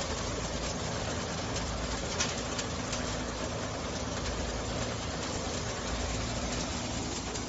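Compact enclosed road sweeper running as it drives along, its rotating side brushes scrubbing the concrete and sweeping up dry leaves: a steady mechanical hum with a couple of brief clicks.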